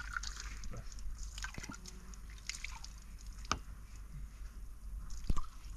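Water dripping and trickling from a tipped plastic pitcher, with a few sharp clinks, the clearest about three and a half and five seconds in, as drinking glasses are handled on a plastic tray.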